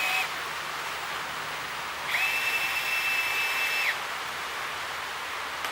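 Electric power driver's motor whining steadily for about two seconds, spinning out a cowl-mount bolt while the nut is held with vise grips. A shorter burst of the same whine cuts off right at the start.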